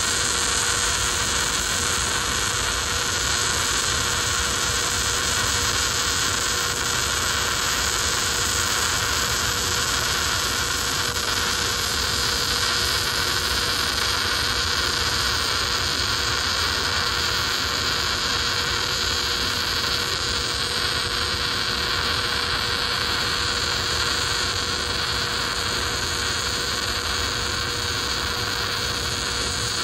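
MIG welding arc from a Miller Deltaweld 500 running at 23.5 volts and 615 amps, laying the first pass of a 3/8-inch weld on heavy steel: a steady, unbroken arc noise with a faint steady tone beneath it.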